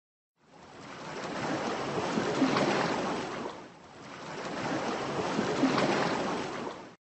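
Small sea waves washing onto a shore: two waves, each a hiss that swells and falls back, the second cut off abruptly near the end.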